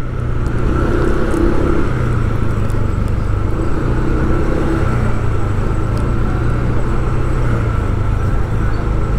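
A motor vehicle's engine running steadily at a constant pitch, with road and traffic noise.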